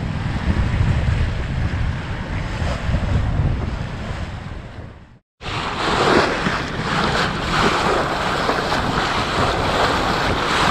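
Wind buffeting the microphone with water rushing past the hull of a sailing yacht under sail. After a brief cut about five seconds in, the rush and splash of the bow wave along the hull is louder and hissier.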